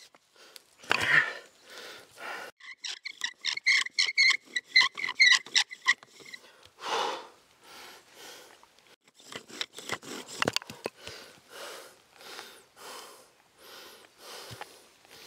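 Bow drill fire-making: the wooden spindle squeaking in the hearth board with each stroke of the bow, a fast run of about three squeaks a second for the first half. After that come hard breathing from the effort, a few knocks and rustling. The short spindle is bottoming out into wet forest debris and giving no ember.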